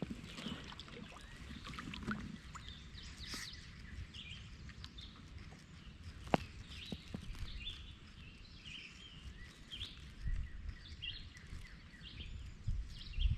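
Small birds chirping, many short calls throughout, over a low rumble that grows near the end, with a few sharp clicks and knocks.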